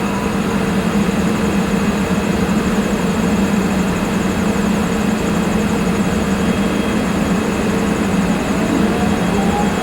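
Double-headed JNR EF64 electric locomotives running with a tank-car freight train, a steady heavy hum with a faint whine rising in pitch near the end as they pick up speed.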